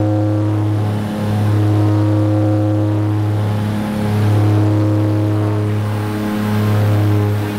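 Small passenger plane's engines running at climb power just after takeoff, heard inside the cabin as a loud, steady, deep drone.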